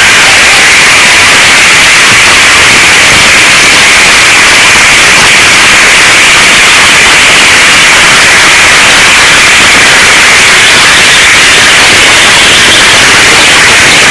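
A large crowd cheering and shouting all at once in a dense, unbroken roar that stays loud and steady throughout.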